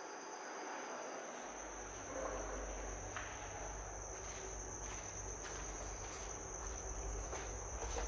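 Crickets chirring in a steady high trill, with a few faint footsteps. A low rumble comes in about a second and a half in.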